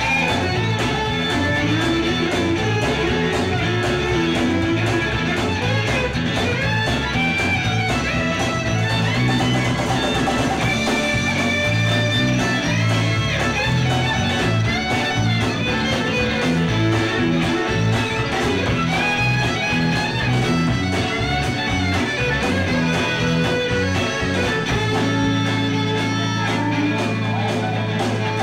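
Live rock band playing an instrumental passage: electric guitars and bass guitar, with fiddle, on a somewhat blippy old VHS recording.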